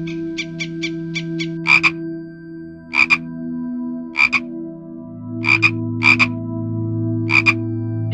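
Frog croaking. A quick rattle of short clicks comes first, then loud short croaks, mostly doubled, about once a second.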